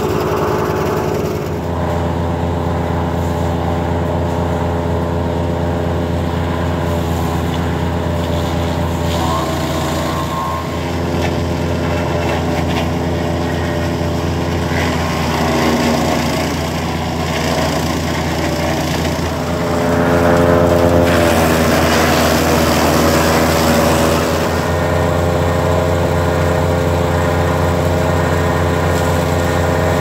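15 hp petrol garden wood chipper running steadily while bundles of lime tree suckers are fed through it. The engine note dips briefly as branches go in, and a louder stretch of shredding comes about twenty seconds in.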